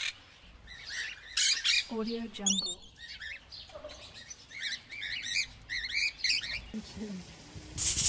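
Parrot calls: short, high chirps and squawks in quick runs, thickest in the middle and later part, as from the rainbow lorikeet that is shown.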